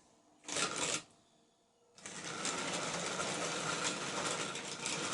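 Hornby model locomotive setting off about two seconds in, its small electric motor and wheels running steadily on the track. A brief burst of noise comes about half a second in.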